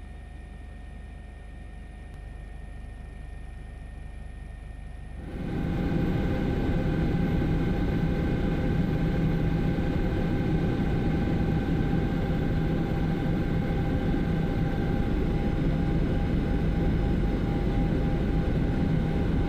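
Helicopter cabin noise: engine and rotor running steadily, a low drone at first, then much louder with a steady hum and whine from about five seconds in.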